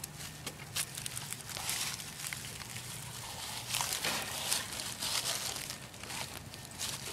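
Irregular rustling and crackling of ground plants and dead leaves as a harnessed opossum and the person walking her move through the undergrowth, with louder bursts about two seconds in and again around four to five seconds.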